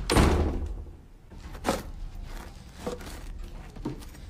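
Bread dough being worked by hand on a wooden table, with soft knocks about once a second. A heavier thump comes right at the start.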